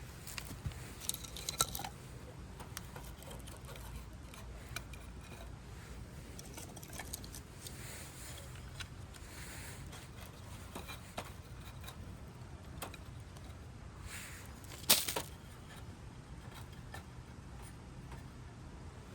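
Scattered light clicks and knocks of things being handled, over a steady low hum, with one louder sharp clatter about fifteen seconds in.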